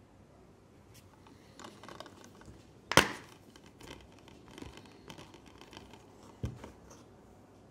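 Plastic Blu-ray case handled and snapped open: one sharp plastic click about three seconds in as the case unlatches, then light clattering and a few smaller clicks of the case and disc, with one more distinct click near the end.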